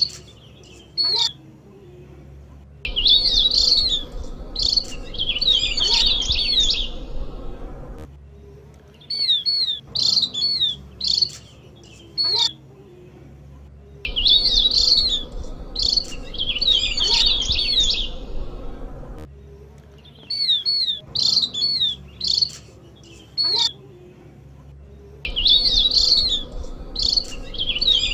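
Opior jawa (Javan grey-throated white-eye) calling in high, quick chirps and sweeping notes. Bursts of dense chattering a few seconds long alternate with sparser single chirps and short pauses. The same phrase sequence repeats about every eleven seconds, as a looped bird-lure recording.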